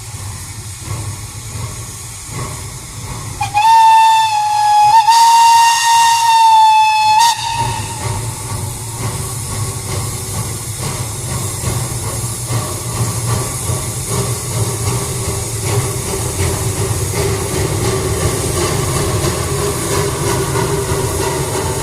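Narrow-gauge steam locomotive blowing one long whistle blast of about four seconds, a few seconds in, as it sets off. Around it, a steady rumble and hiss of steam as the engine pulls out.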